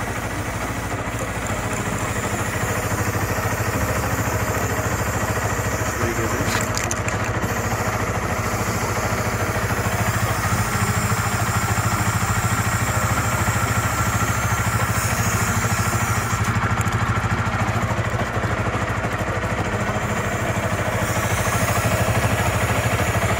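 Motorcycle engine idling in gear on its stand, driving the rear wheel and chain, with bursts of hiss from an aerosol chain lube sprayed onto the moving chain.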